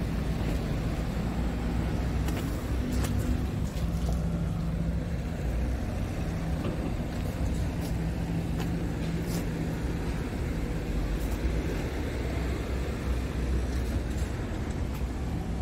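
Scania R tractor unit's diesel engine idling steadily, a low even drone, with a few light clicks over it.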